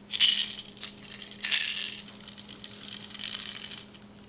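Small plastic toys and packaging rattling and rustling as they are handled and shuffled about, in three stretches, the loudest at the start.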